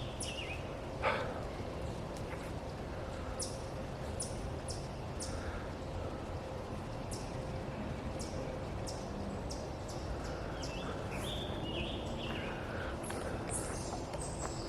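Footsteps on a dirt trail at a steady walking pace, a short scuffing step every half second or so, over a low steady background noise.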